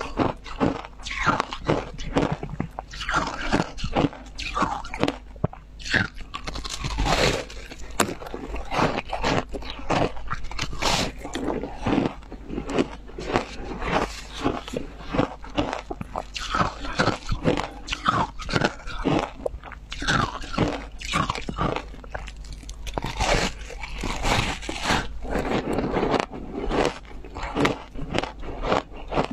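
Biting and chewing a block of frozen ice dipped in passion fruit juice: crisp, wet crunches coming several times a second with short pauses between bites.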